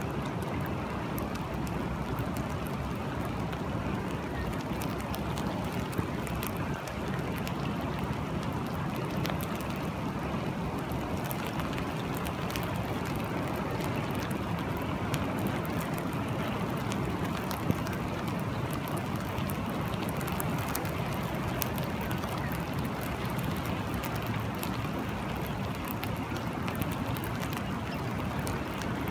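Steady rain falling: a continuous hiss with many individual drops ticking sharply through it.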